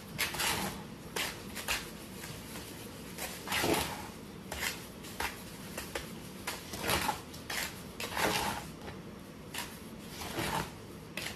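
A large spoon stirring and scraping wet plaster mix around a bowl, in short, irregular scraping strokes one or two a second.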